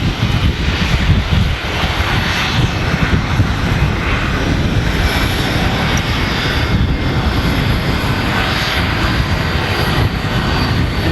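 Jet aircraft engine running steadily: a loud, even rush of noise with a thin high whine held over it.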